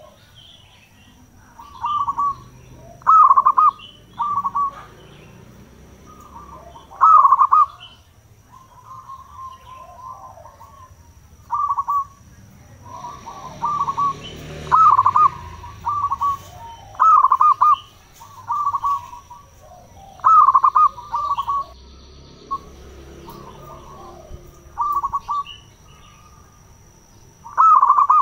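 Zebra doves (perkutut) cooing: short phrases of quick notes repeated every second or two, some phrases much louder than others.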